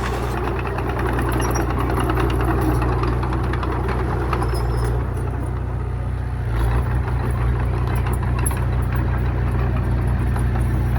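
Heavy diesel earthmoving machine engine running steadily, growing louder and deeper about six and a half seconds in.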